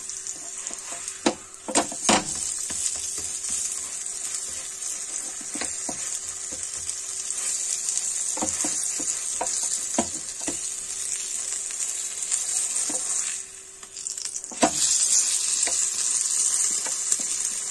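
Stuffed paratha sizzling in ghee on a hot nonstick pan, with a few sharp knocks as a silicone spatula presses it down. The sizzle drops away for about a second around 13 seconds in, then comes back louder with a knock.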